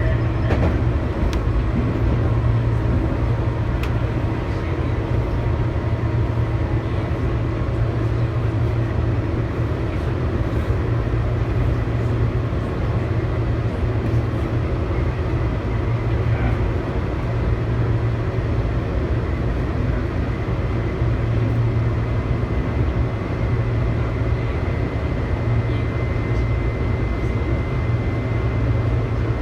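Tobu 8000 series electric train running along the line between stations, heard from inside the car: a steady low hum with continuous wheel and track noise. A faint high whine comes in near the end.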